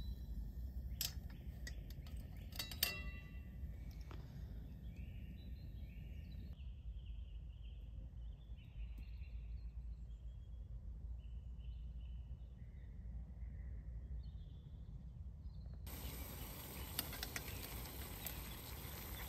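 Woodland ambience overnight: a steady low rumble with faint short high calls in the middle, and a few sharp clicks in the first few seconds. The background changes abruptly twice, as at cuts between recordings.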